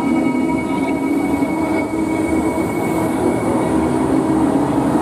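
NS intercity train's blue-and-yellow coaches rolling past an underground station platform as the train pulls away, a steady rumble with several held tones above it.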